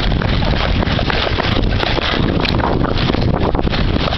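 Wind buffeting a body-worn camera's microphone: a loud, steady rush, heaviest in the low end.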